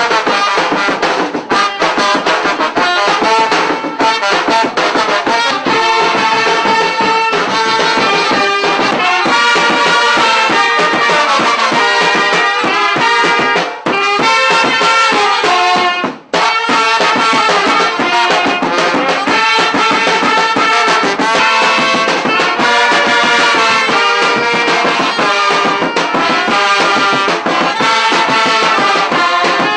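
Vietnamese funeral brass band playing a tune, trombone and trumpet over drums, with a short break about sixteen seconds in.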